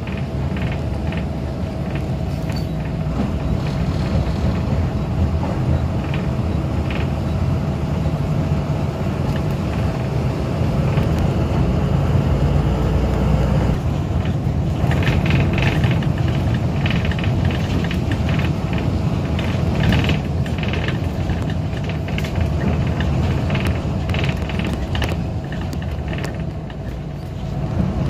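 Cabin noise inside a moving bus: the engine and road noise make a steady low rumble with a faint constant whine, and scattered clicks and rattles come and go, busiest around the middle.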